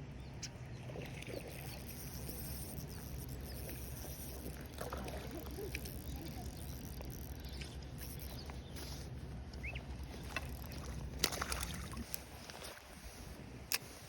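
Outdoor ambience: a steady low rumble that fades out near the end, with scattered small ticks and two sharp clicks near the end.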